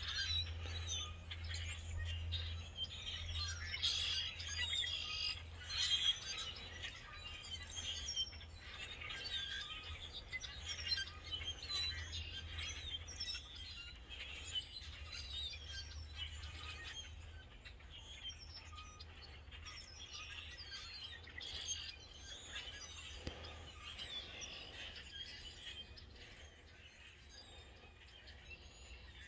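A flock of birds in a bare tree chirping and chattering together, a dense tangle of overlapping short calls that grows fainter toward the end.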